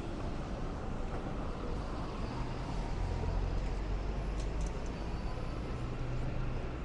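Street traffic noise, with a motor vehicle's low engine drone growing stronger about two seconds in and easing off near the end.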